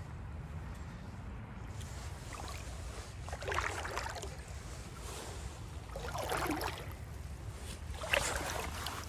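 Low rumble of wind on the microphone, with three swishing splashes of water about two and a half seconds apart.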